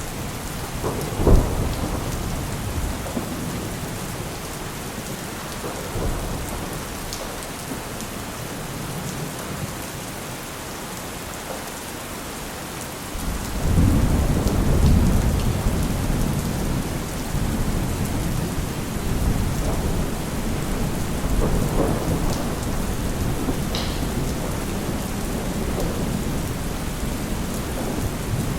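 Steady rain with thunder: a sharp clap about a second in, and a long low rumble that swells up about halfway through and rolls on.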